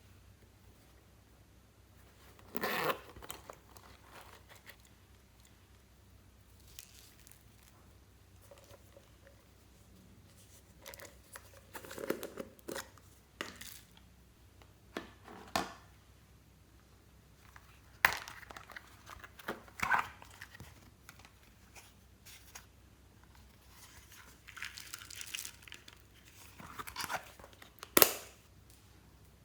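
Slime being handled and mixed by hand: scattered sticky crackles, pops and tearing sounds with quiet gaps between them, the sharpest snap near the end.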